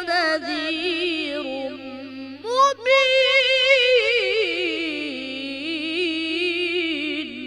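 A boy's voice in melodic Quran recitation (tajweed), drawing out a long ornamented phrase with wavering pitch. It sinks, breaks off briefly about two and a half seconds in, leaps back up and slowly descends again. A faint steady low hum runs underneath.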